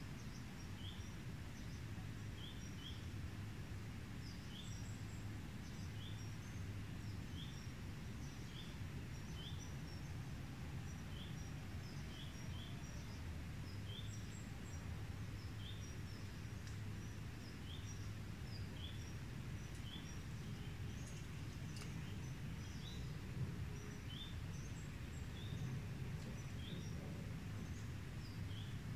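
Outdoor ambience: a bird repeats a short high chirp about once a second, with fainter higher notes among them, over a steady low rumble.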